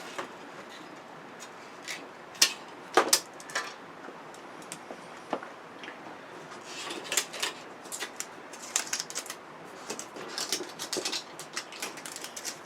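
Scattered sharp clicks and light rattles of plastic and metal TV parts being handled and pulled apart during hand disassembly of an LED television, a couple of single clicks a few seconds in, then a busier run of small clicks in the second half.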